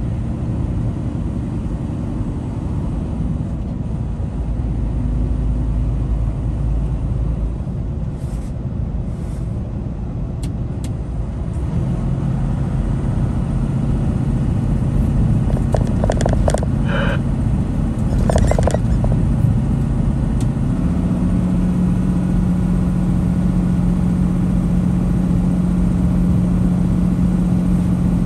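Truck's diesel engine droning with road noise, heard inside the cab while descending a grade. The engine note steps to a new steady pitch twice, and a few brief higher-pitched noises come about two-thirds of the way through.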